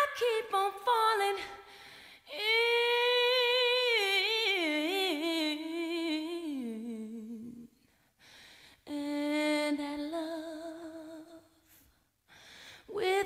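A woman humming a slow tune in long, wavering held notes. The first phrase steps downward in pitch; after a short pause a second phrase holds mostly one note.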